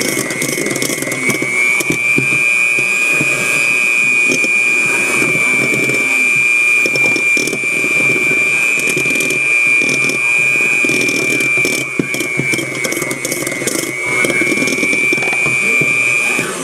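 Small electric kitchen appliance motor running steadily under load with a high whine, mixing butter into flour for a crumbly dough. The pitch lifts slightly about two seconds in, sags briefly near the end, and then the motor cuts off suddenly.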